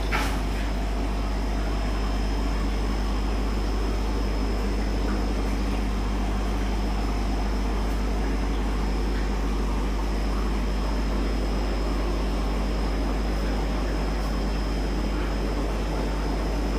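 Steady low mechanical hum with a thin, steady high whine, unchanging throughout, and a brief knock right at the start.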